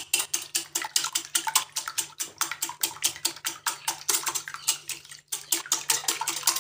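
Three raw eggs being beaten by hand with a whisk in a glass bowl: quick, even strokes at about five a second, the whisk clicking against the glass over the wet slosh of the eggs. There is a brief stop a little over five seconds in.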